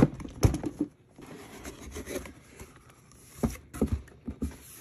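Cardboard kit box being handled and its lid opened: rubbing and scraping of cardboard, with two knocks near the start and two more about three and a half seconds in.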